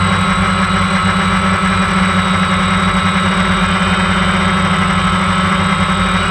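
DJI Phantom 1 quadcopter's four brushless motors and propellers running at a steady hover, heard close up from the drone's own onboard camera: an even, loud hum with a thin high whine above it.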